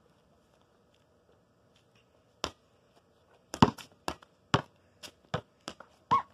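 A ball bouncing on a concrete driveway: one bounce about two and a half seconds in, then a run of sharp bounces roughly every half second near the end.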